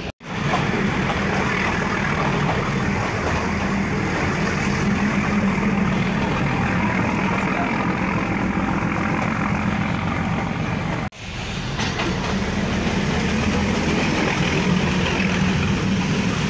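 Nilgiri Mountain Railway carriage running along the track, heard at an open window: a steady rumble of the moving coach. The sound cuts out for a moment about eleven seconds in.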